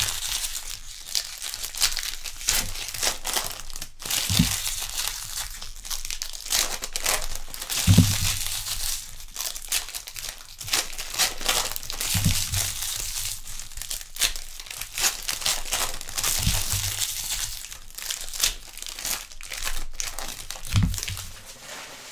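Baseball card pack wrappers being torn open and crumpled, a dense crackling rustle, with a soft low thump about every four seconds.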